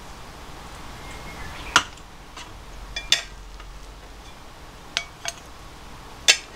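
White plastic rice paddle knocking against the rim of an aluminium rice pot and a bowl while cooked rice is scooped out: about six short clinks with a brief ring, the loudest near the end.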